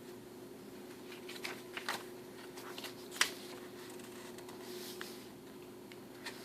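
Paper and cardstock rustling, with a few light clicks and taps as the pages and pockets of a junk journal are handled, the sharpest tap about three seconds in; a steady low hum runs underneath.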